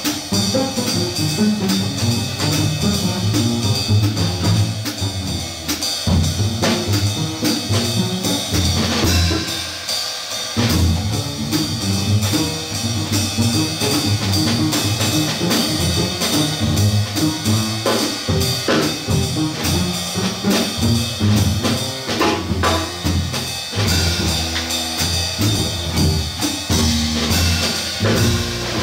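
Upright bass plucked in a moving jazz line with a drum kit playing along: cymbals, snare and bass drum hits, no trumpet.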